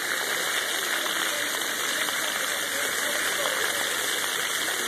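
Splash pad water jets and sprayers hissing steadily as they spray onto the wet pad, with faint children's voices underneath.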